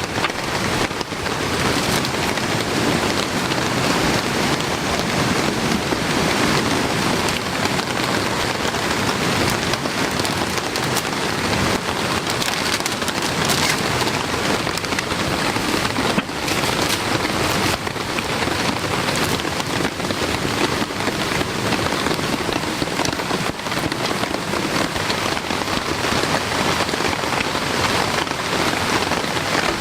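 Heavy rain pouring steadily, a dense patter of countless drops.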